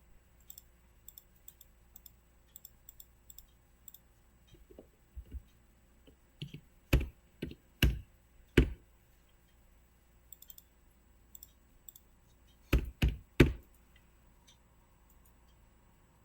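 Computer mouse and keyboard clicks as parts are edited on screen: faint light clicks at first, then louder single clicks spread out from about five to nine seconds in, and three quick loud clicks near thirteen seconds.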